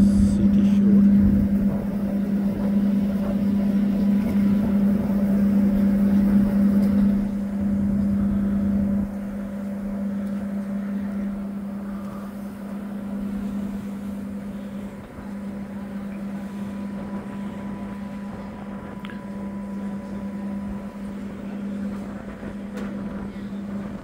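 Steady low drone of a ferry's engines heard from the open deck, a deep hum with a rushing noise over it; it drops noticeably in level about nine seconds in.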